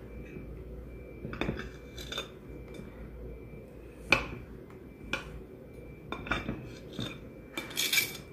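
Kitchen knife clicking and knocking against a cake plate as a carrot cake is sliced, in scattered single strokes, the sharpest about four seconds in. Near the end the blade scrapes along the plate as it slides under a wedge to lift it out.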